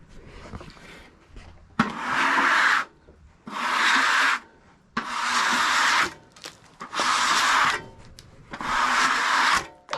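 Long, even scraping strokes on wood, five in a row about a second and a half apart, starting about two seconds in.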